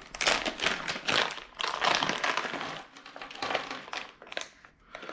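Rummaging through a plastic bearing kit: crinkling plastic and small clicks of parts being handled, in irregular bursts.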